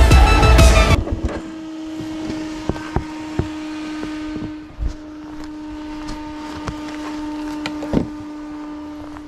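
Background music cuts off about a second in. Then a quad bike's engine idles with a steady hum, with scattered clicks and knocks from gear being handled and a louder knock near the end.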